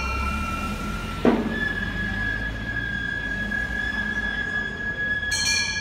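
Gion-bayashi festival music from the second-floor room: a bamboo transverse flute holds long steady notes, moving up to a higher held note after a sharp stroke about a second in. A small hand-held bronze gong (kane) rings out near the end, over a low steady rumble.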